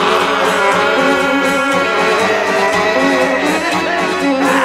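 Instrumental passage of a Balkan gypsy-punk dub track: plucked guitar with fiddle, playing steadily with no singing.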